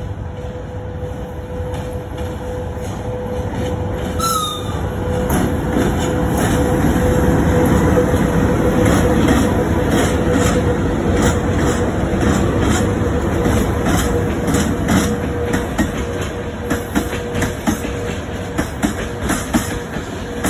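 VL80S twin-section AC electric freight locomotive passing close by with a freight train: the rumble of the locomotive and its wheels builds to a peak as it goes by, over a steady hum that fades once it has passed. Near the end come the rhythmic clicks of the open wagons' wheels over the rail joints.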